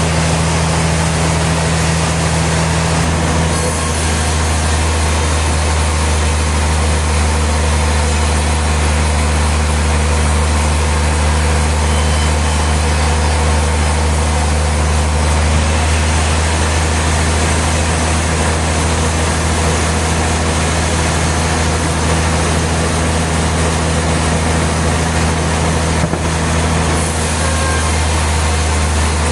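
Sawmill machinery running steadily: a loud, deep, even engine drone with a broad hiss over it. The drone grows a little stronger about three and a half seconds in.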